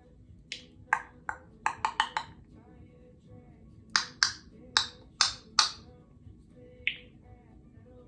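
Congo African grey parrot making sharp, high-pitched clicks and pops: two quick runs of about half a dozen each, then a single click near the end.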